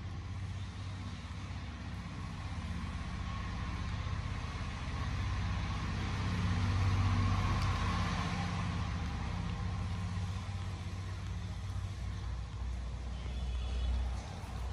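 A steady low rumble that grows louder about halfway through and then eases off again.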